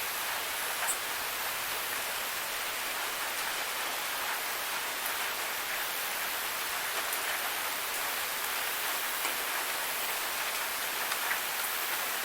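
Steady rain, an even hiss with now and then a single drop heard closer.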